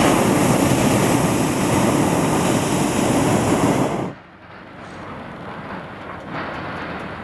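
Hot-air balloon's propane burner firing: a loud, steady rushing blast that starts suddenly and cuts off sharply after about four seconds.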